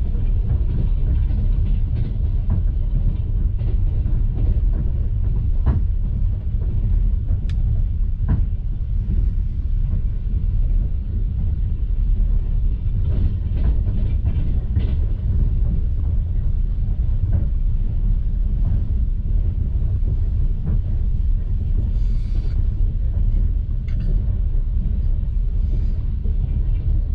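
Steady low rumble of a long-distance passenger train carriage running at speed on the rails, heard from inside the compartment, with faint scattered clicks and knocks.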